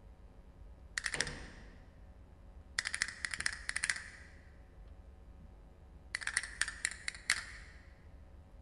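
Sparse percussion accompanying the dance: a brief clatter of sharp, ringing clicks about a second in, then two quick runs of rapid clicks, one around the third second and one from about six to seven and a half seconds.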